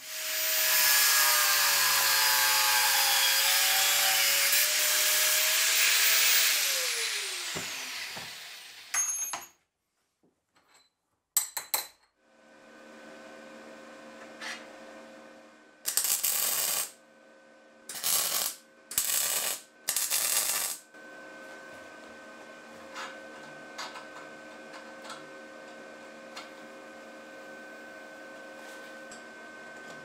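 A power tool's motor runs loudly and then winds down, its pitch falling about seven seconds in. Later, over a steady electrical hum, four short bursts of arc welding crackle.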